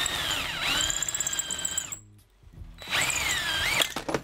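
Cordless drill boring through a small metal bracket held in a vise: a motor whine that dips in pitch as the bit bites, runs about two seconds and stops, then a second shorter burst of drilling with a wavering pitch.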